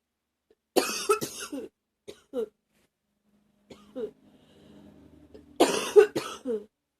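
A woman with a cold coughing: a fit of several coughs about a second in, a few small throat sounds in the middle, and a second fit of coughs near the end.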